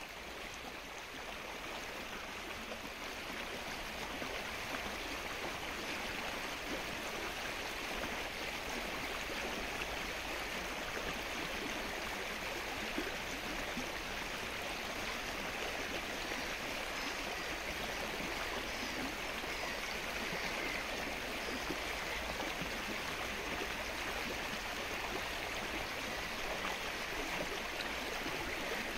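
Steady rain falling on the open water of a flooded lake, a dense, even patter of drops.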